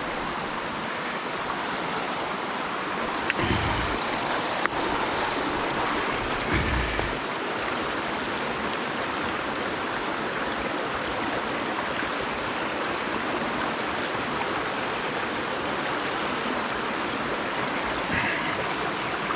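Mountain stream water rushing steadily over a shallow riffle, a continuous even hiss, with a few brief soft knocks.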